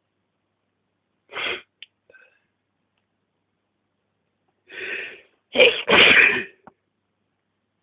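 A person sneezing, set off by sniffed tobacco snuff: a short sneeze about a second and a half in, then a softer build-up and a loud two-part sneeze about six seconds in.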